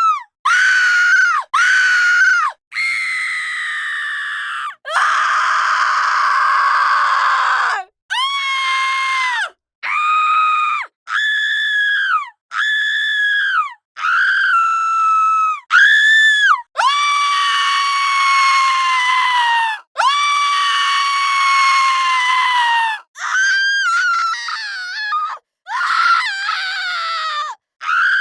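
Women screaming, one high-pitched scream after another with short silent gaps between them: about a dozen and a half in all. Most are shrieks of about a second; a few are held for two to three seconds, and one is rough and raspy.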